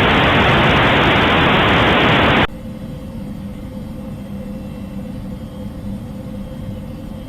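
Loud hissing static that cuts off suddenly about two and a half seconds in, leaving a quieter steady hum with a faint held tone.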